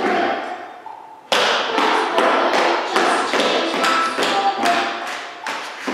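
Sharp percussive taps at a quick, even beat over recorded music. The sound fades low for about a second, then the taps come in abruptly.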